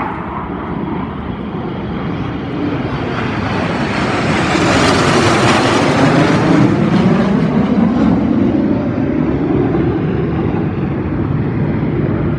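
Jet aircraft flying past overhead: a loud roar that builds to a peak about halfway through, then slowly fades as it moves away.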